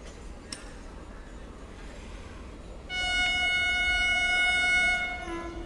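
Electric locomotive horn, the WAP7 at the head of an approaching express, sounding one long steady blast of about two seconds, ending with a brief lower note.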